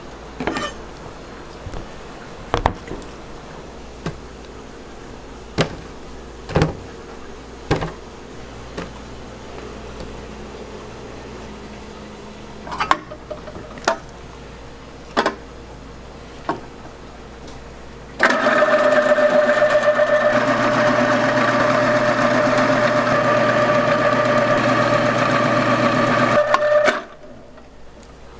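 Scattered knocks and clicks as the machine is handled and loaded. Then a commercial continuous-feed food processor's motor runs with a steady whine for about eight seconds while grating hard cheese, and stops abruptly.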